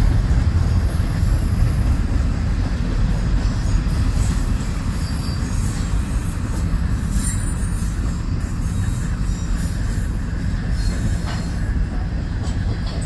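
Double-stack intermodal well cars rolling past with a steady rumble of steel wheels on rail, easing slightly near the end. Faint high-pitched wheel squeal comes and goes.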